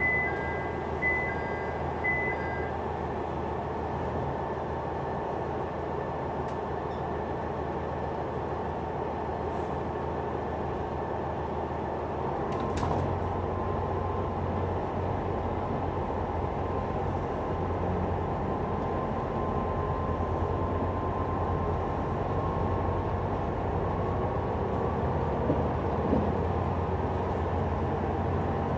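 Cabin noise of a KiHa 187 series diesel railcar running: a steady drone of the diesel engines and the rumble of wheels on rail. Three short two-tone beeps sound near the start. About halfway through there is a click, and the low engine drone grows louder.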